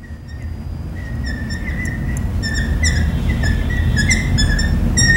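Bird chirping: a run of short, high, downward-sliding chirps, several a second, over a low steady noise that grows louder.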